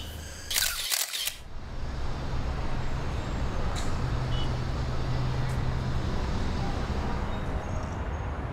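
A DSLR camera shutter fires in a quick run of clicks about half a second in. After it comes steady city traffic noise with a low hum.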